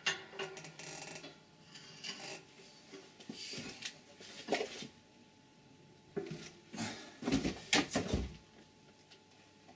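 Sharp metal clanks and knocks of tools on an air compressor's head, one about halfway and a louder cluster near the end, as a stubborn, over-tight pipe nut is forced with a spanner and a long wooden-handled tool.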